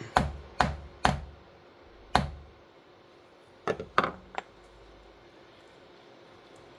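A concave dome rivet setter struck to set a cap rivet through a leather key fob: four sharp blows in the first two seconds, then three lighter quick taps a little later.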